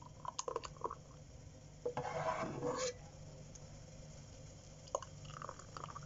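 Thick orange marmalade mixture poured into a glass cup: a few small clicks and taps, then a splashing pour lasting about a second starting about two seconds in, and a few more taps near the end.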